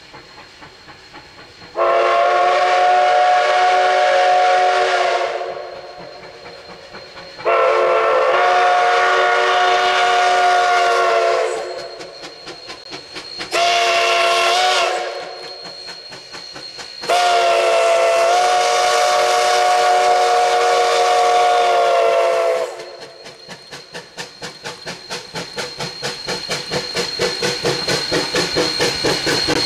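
Narrow-gauge steam locomotive No. 152 blowing its whistle in the grade-crossing signal: two long blasts, one short, one long. Then its exhaust chuffs in a quick even beat that grows louder as the engine comes closer.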